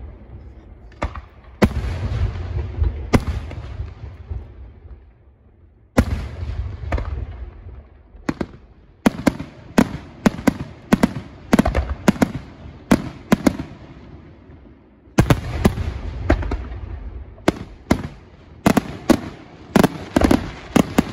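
Aerial firework shells bursting: sharp bangs, each followed by a rumbling echo. A few single heavy reports come first, then quick volleys of about two bangs a second from about nine seconds in, and after a brief lull another dense run near the end.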